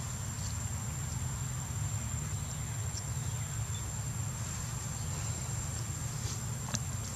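Outdoor ambience: a steady low rumble under a constant high-pitched insect drone, with a few faint clicks, one sharper near the end.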